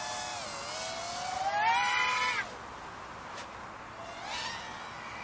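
Eachine Twig 115 toothpick racing quad's 5200kv brushless motors whining. The pitch sags, then climbs steeply as the throttle is pushed and cuts off sharply about two and a half seconds in. A shorter, fainter rise in pitch comes near the end.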